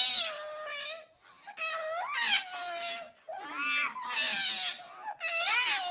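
A high-pitched voice wailing in about four drawn-out cries, each held and bending in pitch, with short breaks between them.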